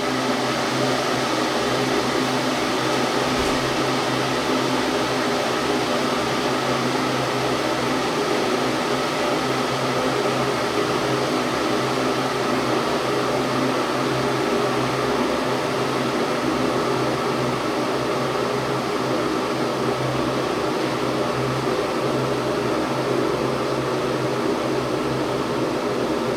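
Electric hot-water machine running as it heats water, a steady hiss over a constant low hum, before the water comes to the boil.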